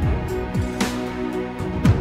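Background music with a regular beat and sustained tones.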